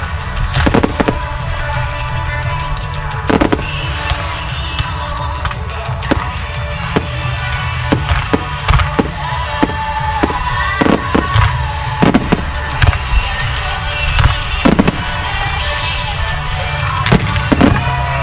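Aerial fireworks bursting, a dozen or more sharp booms at irregular intervals, over music playing through the whole stretch.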